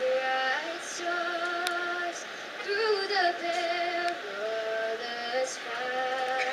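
A woman's voice singing a slow melody of long held notes, with no accompaniment underneath.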